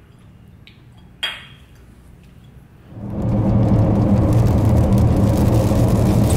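Steady car road and engine noise heard from inside the cabin while driving on a wet highway, cutting in suddenly about three seconds in and the loudest sound here. Before it, a quiet room with one short sharp click a little over a second in.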